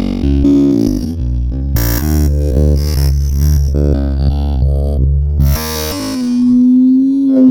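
Electronic music with a deep, heavy bass line played through an 18-inch subwoofer. About six seconds in the bass drops out and one held synth note swells louder.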